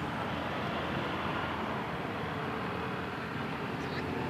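Steady road traffic noise: vehicles running past, with no horn sounding.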